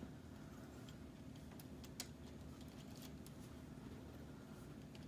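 Faint clicks and taps of K'nex plastic fence pieces being slid back onto plastic rods, with one sharper click about two seconds in, over a steady low hum.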